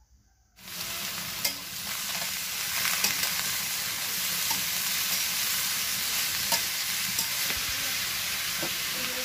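Sliced bitter gourd and potato frying in mustard oil in a metal wok, with a steady sizzle that starts about half a second in. A metal spatula scrapes and clicks against the wok as the vegetables are stirred.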